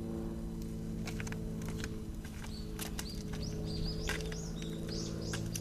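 Small birds chirping, a quick run of short high calls that thickens in the second half, over a steady low drone.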